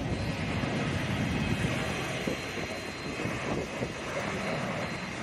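Jet airliner engines, a steady rushing noise with a faint thin high whine.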